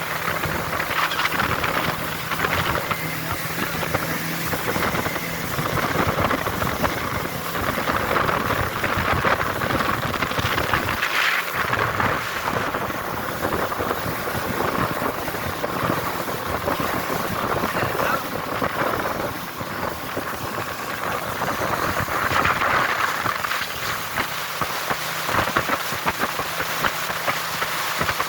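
Motorboat under way: a steady rush of wind and water over the running engine, with wind buffeting the microphone in surges.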